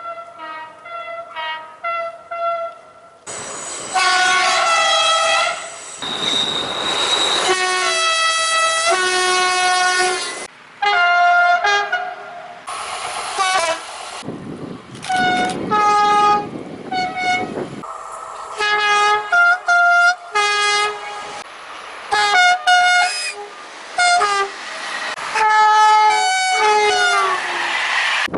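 French train horns sounded again and again, stepping between two or more pitches in short tune-like patterns. Several recordings follow one another with abrupt cuts, and some are backed by the noise of a passing train.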